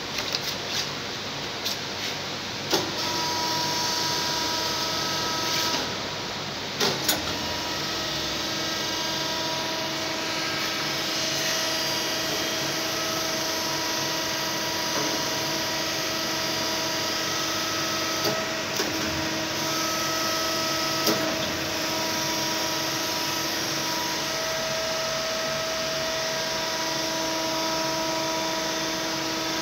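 Horizontal machining centre running, a steady mechanical whine with several steady tones, while its table turns the hydraulic fixture. A few sharp clicks, about 3 and 7 seconds in and twice more later.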